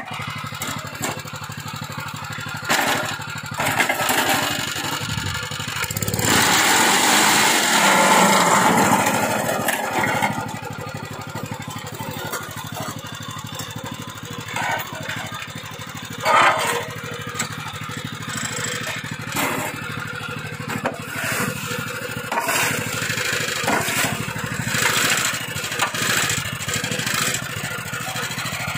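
Small petrol engine running steadily, driving a concrete block-making machine, while a rake scrapes wet concrete into the mould. A louder rush of noise comes about six to ten seconds in, and there are scattered sharp knocks, the loudest just past the middle.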